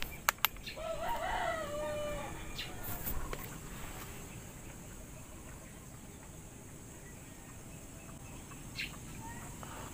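A rooster crows once, starting about a second in, a single call lasting just over a second. It is preceded by a few sharp clicks in the first half-second.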